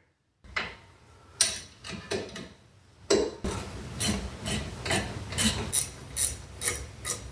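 Ratchet wrench clicking as brake caliper bolts are run in: a few scattered clicks and rubs, then from about three seconds in a steady run of quick, even clicks, about three a second.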